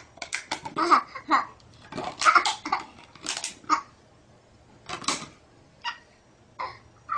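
Baby laughing and babbling in short, repeated bursts of excited squeals and giggles.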